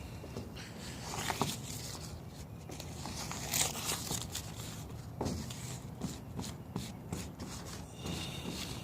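Footsteps with light scuffs, scrapes and scattered clicks of handling.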